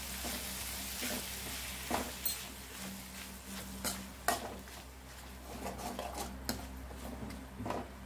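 Chopped tomatoes and onions sizzling in oil in a metal kadai while a steel ladle stirs them, scraping and knocking against the pan several times. This is the stage of sautéing freshly added tomatoes until they soften.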